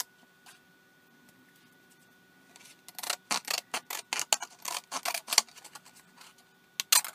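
Scissors cutting a strip from a thin frosted plastic diffuser sheet taken from an LCD TV: a quick run of crisp snips starts about three seconds in, with a few more near the end.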